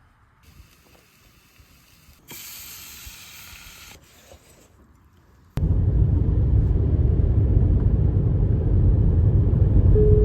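A short hiss lasting under two seconds, then a sudden change to the loud, steady low rumble of a car on the move.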